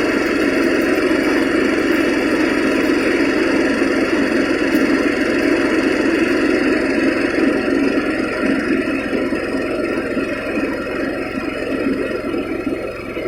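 Small rice threshing machine running steadily, its motor and threshing drum giving a continuous hum that eases slightly after about eight seconds.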